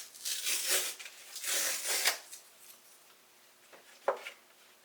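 Cardboard and paper rubbing and sliding in two rustling strokes as an item is worked out of a cardboard insert, then a single sharp tap a little after four seconds in.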